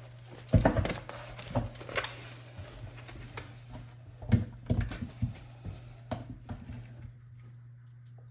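Irregular knocks and clunks of things being handled in a kitchen, half a dozen or so, over a steady low hum.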